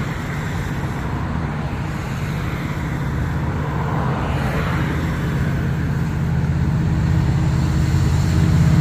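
Diesel locomotive engine drone from an approaching freight train not yet in sight, a steady low hum that grows slowly louder.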